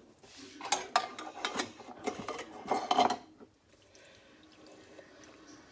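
A spatula stirring and scraping a thick ground-meat and vegetable filling in a large pan, a run of uneven scrapes for about three seconds.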